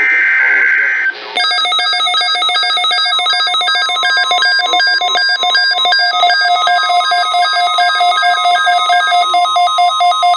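NOAA Weather Radio test transmission: the last SAME digital header burst, a harsh screech of about a second, then a pulsing multi-tone electronic alert that beeps about two to three times a second.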